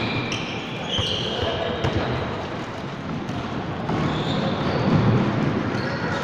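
A basketball being dribbled and bouncing on a hardwood gym floor. Sneakers squeak in short high squeals as players run and cut.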